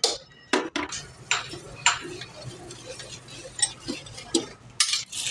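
Scattered sharp metal clinks and taps of hand tools and engine parts being handled, about eight over several seconds.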